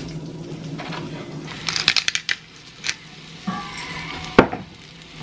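A knife scrapes and taps chopped onion and garlic off a cutting board into a skillet. There is a quick run of clatters about two seconds in and a single sharp knock a little after four seconds, over a steady low hum.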